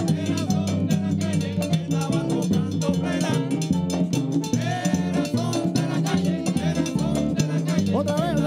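Latin band playing live: hand-held frame drums (panderos) and a scraped güiro keep a brisk, steady rhythm over a bass line. Voices come in singing near the end.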